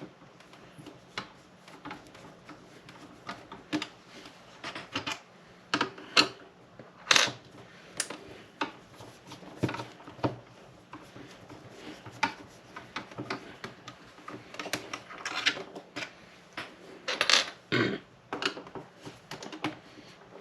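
Irregular clicks, taps and light knocks of hands and small parts working on the plastic case of a Tascam Porta Two cassette recorder. A few sharper knocks stand out, about six and seven seconds in and again near the end.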